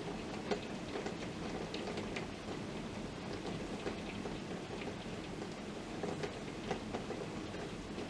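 Heavy thunderstorm rain falling steadily, as a dense hiss with scattered sharp ticks of individual drops striking close by.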